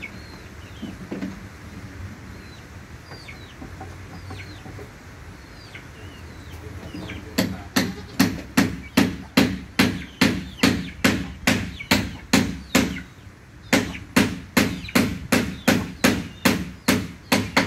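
Chicks peeping, with short falling chirps. About seven seconds in, a steady run of sharp strikes starts, about two a second, pauses briefly, then goes on almost to the end.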